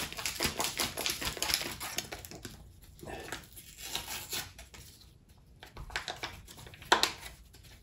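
A hot chocolate mix packet being opened: dense crinkling and rustling of the packaging for the first two seconds or so, then scattered rustles and a sharp click about seven seconds in.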